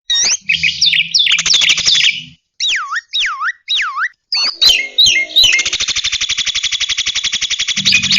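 Recorded songbird calls played as a tutor track for starlings: a run of varied whistled chirps, then three swooping whistles that dip and rise again, then a fast rattling trill that runs on to the end.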